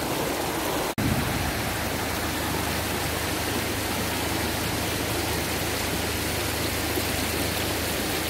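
Steady rushing of a river's flowing water, cutting out for a moment about a second in.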